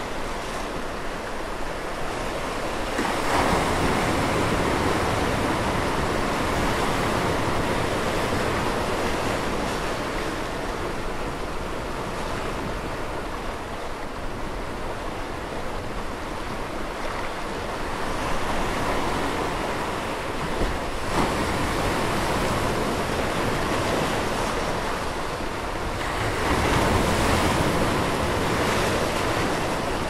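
Ocean surf churning and washing through a narrow rocky inlet, waves breaking against the rock ledges. A steady rush of white water that swells louder a few seconds in, again past the middle, and once more near the end.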